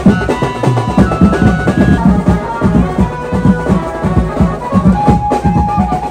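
Music with a busy, fast drum beat and a melody over it; a long held note comes in near the end.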